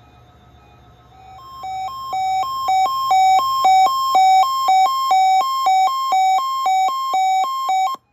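Weather radio alert tone during a required weekly test: two electronic beeps, one lower and one higher, alternating in an uneven pattern. It fades in about a second in, grows loud and stops abruptly near the end.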